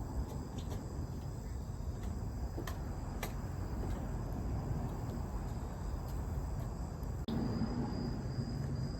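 Campfire burning with a low steady rush and a couple of sharp pops, while insects chirp. A steady high insect tone comes in after a momentary dropout about seven seconds in.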